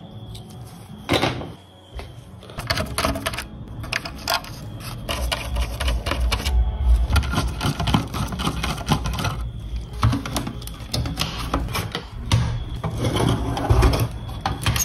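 Screwdriver working small screws out of a diecast model car's metal chassis, with irregular clicks, scrapes and the clatter of metal and plastic parts being handled and pulled apart. One sharper click about a second in, and the handling noise grows busier from about five seconds in.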